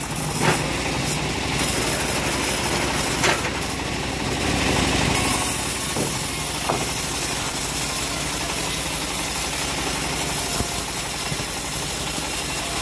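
Homemade bandsaw sawmill running while its blade cuts lengthwise through a log of hard jowar wood: a steady mechanical drone with sawing noise and a few sharp knocks.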